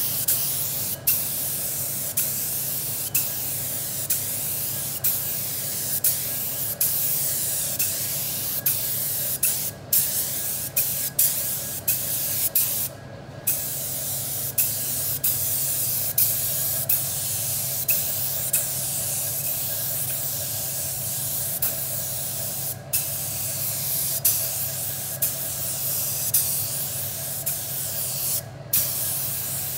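DeVilbiss SRi Pro Lite S spray gun atomising water-based leather paint: a steady hiss of air and paint, cut by about five short pauses as the trigger is let off.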